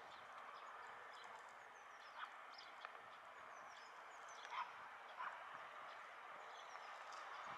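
Faint open-air ambience: a steady low hiss with scattered faint high chirps and a few soft knocks.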